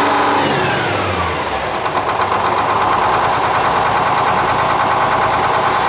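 A 1968 GMC truck's Detroit Diesel 6-71 (a naturally aspirated two-stroke inline six) runs shortly after a cold start. Its revs fall over the first second and a half, then it settles into steady running.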